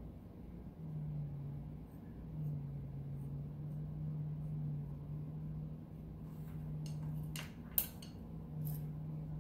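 A low steady hum, then a few light clicks and taps of a wooden chopstick and a bread lame being handled on a wooden board near the end, the sharpest click just before eight seconds in.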